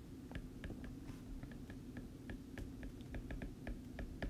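Faint, irregular small clicks of a stylus tapping and sliding on a tablet screen during handwriting, over a low steady hum.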